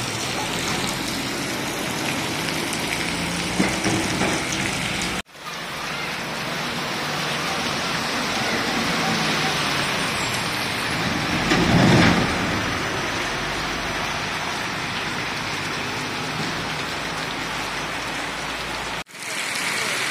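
Heavy rain falling steadily on a road and puddles, an even hiss. About halfway through a vehicle drives past on the wet road with a louder rushing swell, and the rain sound drops out briefly twice.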